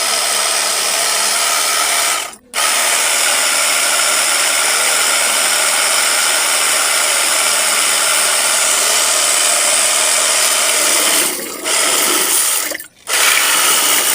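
Portable electric pressure washer's motor running steadily while it draws water up its suction hose to prime. It cuts out briefly about two seconds in and again about a second before the end, then starts straight back up.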